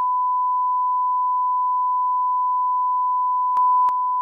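Steady 1 kHz censor bleep, a single pure tone laid over speech to hide a spoken name. It jumps slightly louder with two faint clicks about three and a half seconds in.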